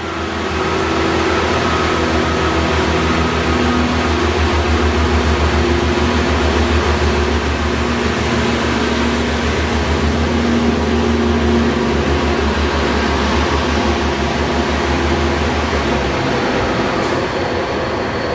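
Pacer diesel railbus pulling out of the platform, its underfloor diesel engine running hard with a low, rapid throb. The throb eases near the end as the unit draws away.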